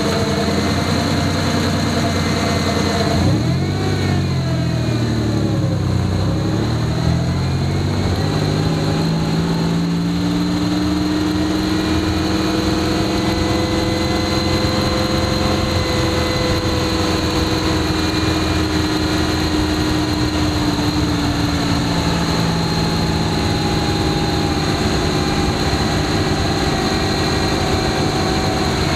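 Running noise from under a 1989 Toyota pickup at the right front wheel, driving in two-wheel drive: steady tyre and road roar with a drivetrain hum whose pitch rises and then falls again as road speed changes.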